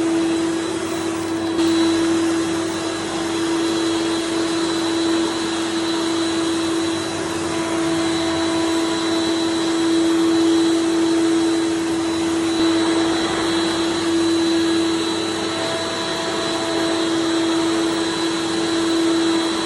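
Vacuum cleaner running steadily: a constant motor hum over a rushing airflow, its loudness rising and falling a little.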